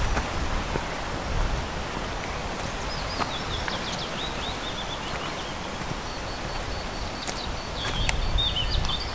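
Small birds singing in forest: a run of quick high chirps from about two and a half seconds in, then a rapid high trill of repeated notes toward the end. Footsteps on a leaf-covered path and a steady background noise sit underneath.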